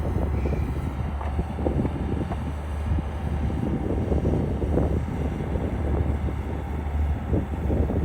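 Skid steer engine running steadily while it works, a continuous low hum with rough, uneven machine noise on top.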